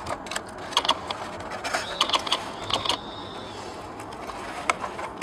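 EPP foam pieces of an RC plane's fuselage creaking and squeaking as they are pressed and fitted together by hand, with scattered small clicks.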